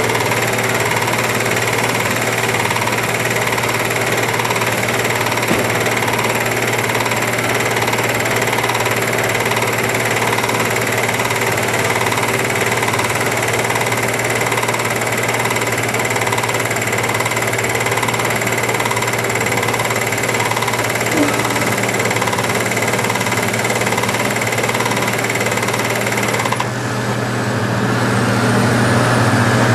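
Diesel engines of hydraulic crawler excavators and a dump truck running steadily under load, a continuous low drone with a high whine over it. Near the end the hiss drops away and the low engine drone grows a little louder.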